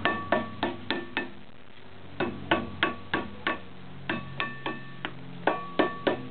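Rubber mallet striking a new brake rotor on the hub of a 2000 Range Rover P38, in quick runs of about three blows a second with a short metallic ring after each. The rotor is a tight fit and is being driven home onto the hub.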